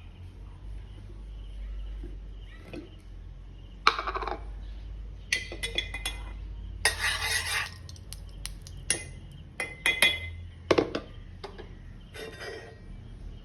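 Kitchen utensils clinking and scraping against a bowl and pan during pancake making, in a series of short bursts with a longer scraping stretch around the middle.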